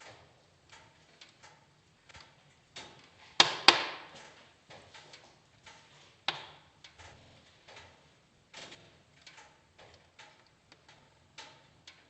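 Wood fire in a fireplace crackling with irregular pops. Two loud pops come close together about a third of the way in, and another sharp pop comes about halfway through.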